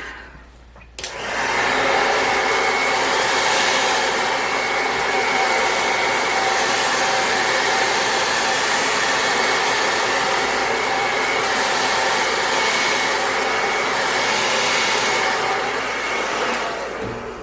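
Handheld blow dryer running: a steady whirring blast of air with a faint motor hum, switching on about a second in and off near the end.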